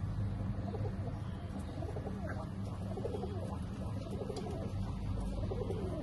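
Modena pigeons cooing, a run of repeated low coos from about a second in until near the end, over a steady low hum.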